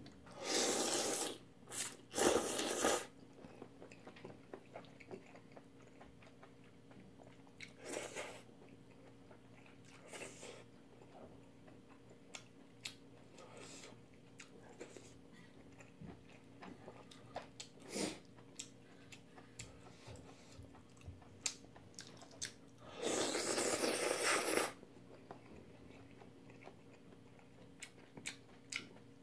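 Close-miked noodle slurping and chewing while eating jjamppong: long noisy slurps in the first three seconds and again about 23 seconds in, with wet chewing and small sharp clicks of metal chopsticks against the bowl between them.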